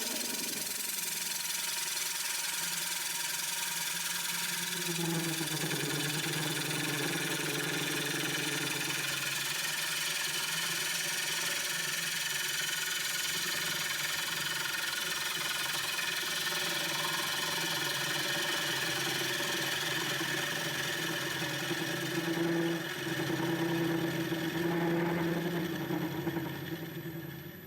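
Coronet Herald wood lathe running with a maple bowl being turned on it: a steady motor hum whose tone strengthens and shifts at times as the cut changes, dropping away near the end.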